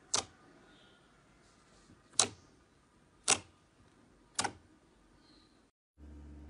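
Thick white slime popping sharply as fingers press into it, air pockets bursting: one pop at the start, then three more about a second apart. Near the end a steady low hum starts.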